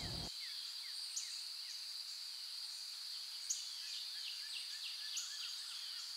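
Outdoor nature ambience: a steady high-pitched insect drone with many quick, falling bird chirps scattered over it.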